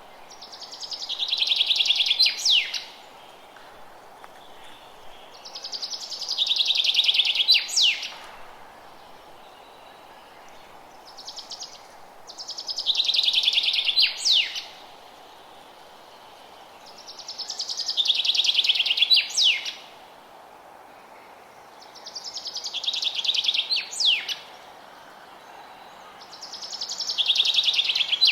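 A songbird repeating the same song six times, about every five seconds. Each song is a fast trill of rapid notes, growing louder, and ends in a couple of sharp falling notes. A steady faint hiss runs underneath.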